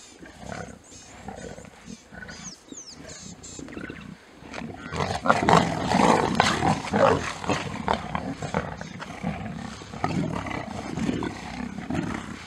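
Lionesses and cubs snarling and growling while they feed together on a giraffe carcass: squabbling over the meat at a kill. It starts quietly and bursts loud about five seconds in, then carries on at a lower level.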